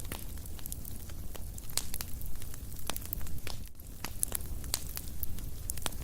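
Wood fire crackling, with irregular sharp pops and snaps, several a second, over a steady low rumble.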